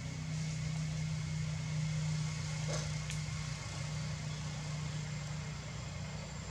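A steady low motor hum over a faint hiss, with two faint ticks about three seconds in.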